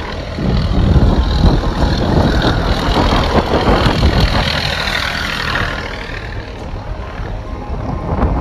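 Strong, gusting wind buffeting the microphone, a loud low rumble with rushing noise that swells about half a second in and eases off around six seconds.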